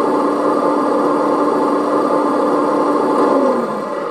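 Hydraulic pump of an RC scale Liebherr 956 excavator with a demolition grab, whining steadily as it works the hydraulics. About three and a half seconds in, the pitch slides down and the sound eases off briefly.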